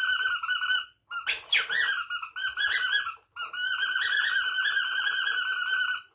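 High-pitched squeaky chatter as the squirrel puppet's voice: a rapidly wavering squeak in three long runs, broken by short pauses about one and three seconds in, with a quick upward swoop just after the first pause.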